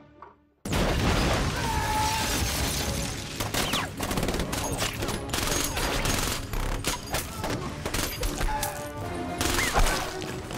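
Film-mix gunfire in a shootout: after a brief hush, rapid automatic gunfire breaks out suddenly and keeps on, with crashes mixed in, over an action music score.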